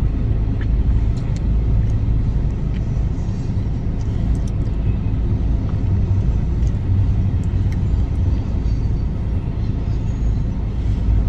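Freight train rolling past a road crossing, heard from inside a stopped car as a steady low rumble.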